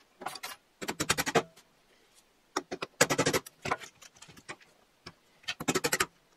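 Small hammer tapping a trigger pin back into a Porter Cable FN250C finish nailer, in several quick bursts of light metal-on-metal taps.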